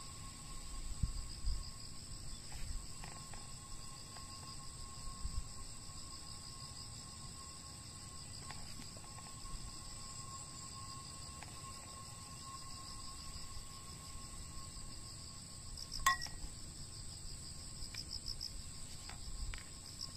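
High, steady trilling of insects in the grass, with a faint steady hum underneath and a few light ticks; one sharper click about sixteen seconds in.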